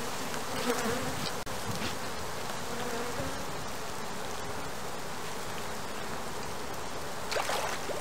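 Honeybees buzzing steadily around an open hive, the hum of many bees together with single bees' buzzes wavering in and out.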